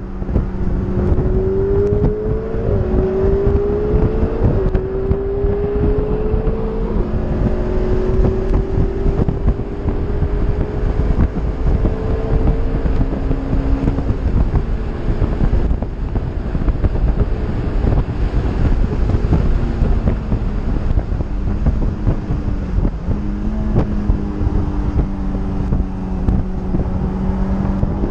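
Honda S2000's four-cylinder engine under hard acceleration on track, its pitch climbing and dropping back at three quick upshifts in the first several seconds, then running steadier with a dip and pickup near the end. Heavy wind buffeting on the microphone in the open cabin.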